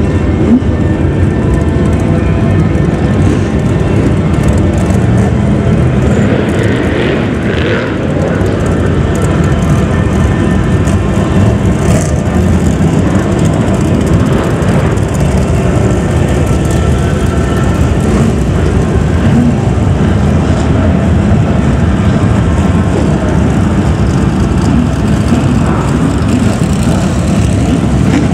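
A pack of BriSCA F1 stock cars racing, their V8 engines running loud and continuous as the field laps the track.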